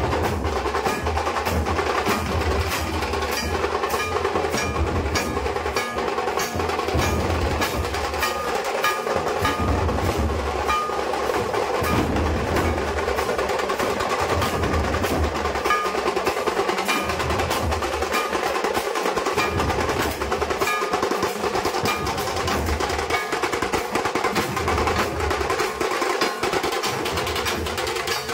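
Dhol-tasha troupe drumming: large barrel dhols beaten with sticks in a steady, heavy rhythm under a fast, continuous tasha roll.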